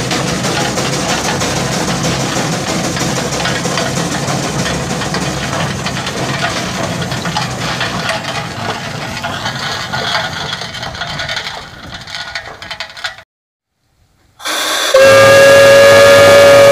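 A 1913 Geiser Peerless Model R steam traction engine's steam whistle blows one long, very loud steady note, starting about 15 seconds in. Before it, a dense steady noise cuts off abruptly about 13 seconds in, leaving a second of silence.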